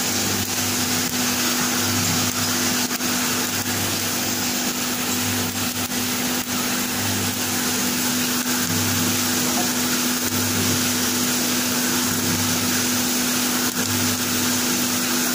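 Coffee roaster running, with its cooling tray's stirring arms sweeping freshly roasted beans around the perforated tray. A steady motor and fan hum with a hiss of air and beans over it, and a low throb that comes and goes about every second or two.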